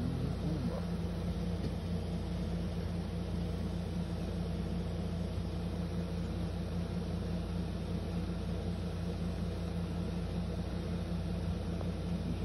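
Steady low mechanical hum with a constant droning tone and a low rumble under it, unchanging throughout.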